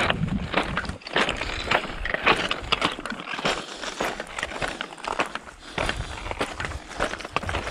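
Hiking footsteps crunching on loose volcanic stones at a walking pace, mixed with the clicks of walking sticks striking the rocks.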